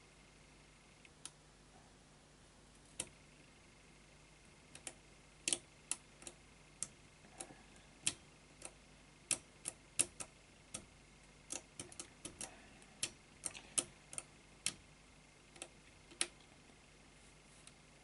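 Push-button combination padlock's metal buttons clicking as they are pressed in one at a time while the shackle is held under tension, feeling for which buttons bind: a few scattered clicks at first, then an irregular run of one or two clicks a second.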